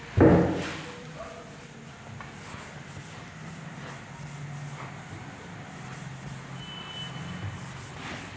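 A loud thump just after the start, then a duster rubbing back and forth across a whiteboard as the writing is wiped off, with a brief faint squeak near the end.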